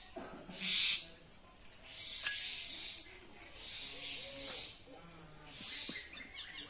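Wood fire burning in a clay chulha with soft recurring hissing, a single sharp click about two seconds in, and an aluminium kadai being lifted and set down on the stove with light knocks near the end.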